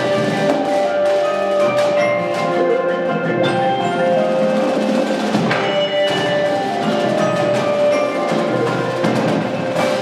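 Indoor percussion ensemble playing: marimbas and other mallet keyboards of the front ensemble sound ringing chords and runs over rapid struck drum and percussion strokes.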